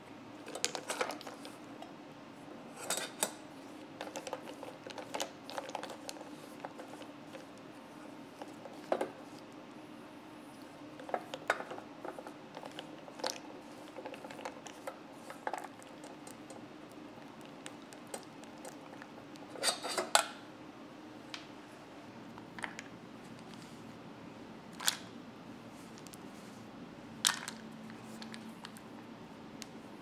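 Spatula stirring white chocolate pieces as they melt in a stainless steel bowl, with scattered light scrapes and taps of the spatula against the metal over a low steady hum.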